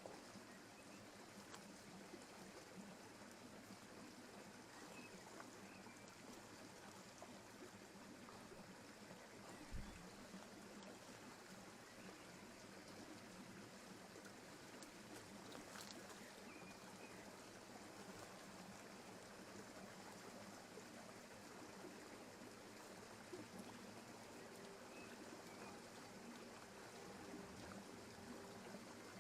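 Faint, steady rush of a forest stream, with one low thump about ten seconds in.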